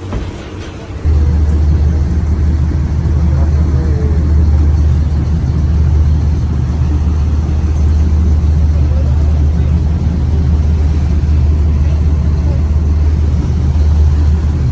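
Motorboat under way: a steady low rumble that gets suddenly much louder about a second in and then holds.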